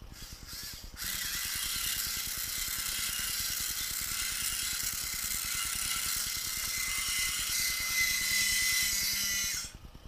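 Small electric motor driving the screw-and-linkage lift mechanism in the neck of a 1/14-scale RC lowboy trailer: a steady whine that starts about a second in and cuts off near the end as the little arms push the neck up.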